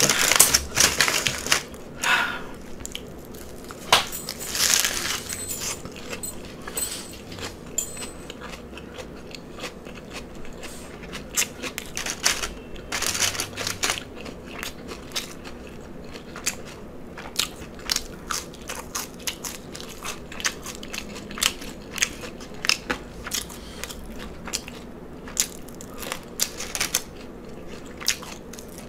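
Close-miked mouth sounds of chewing a lettuce-wrapped cheeseburger slider: wet, crackly lettuce crunches and smacking, irregular and continuous, with a few louder bites early on and midway.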